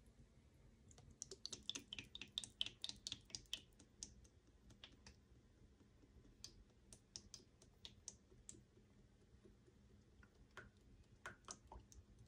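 Cooking oil poured from a plastic bottle into a frying pan: a quick, soft run of small clicks and glugs, thickest over the first few seconds and then scattered, with a few more near the end.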